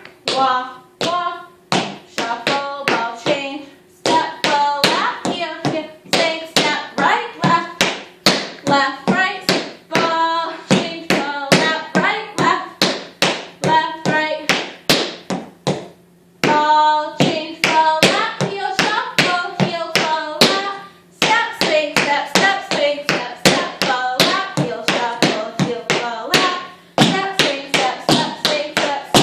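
Tap shoes striking the floor in fast, even rhythms, several sharp taps a second, over music with a melody. There are brief pauses about 4, 16 and 21 seconds in.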